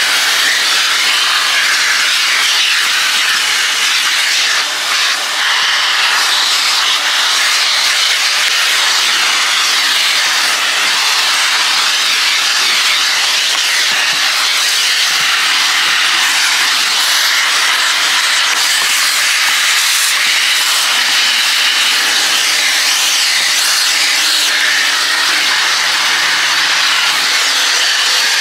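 Self-serve car wash equipment running with a loud, steady hiss.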